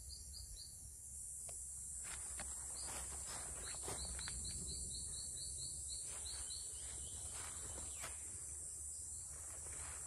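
Rainforest insects trilling steadily at a high pitch, with a quick run of short chirps repeating about five times a second. In the middle, leaves and stems rustle as the camera pushes through the undergrowth.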